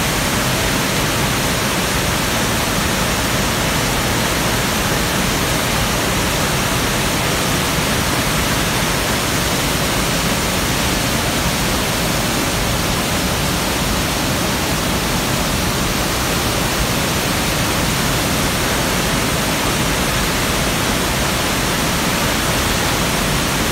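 Iguazu Falls waterfall: a loud, steady, unbroken rush of heavy falling water.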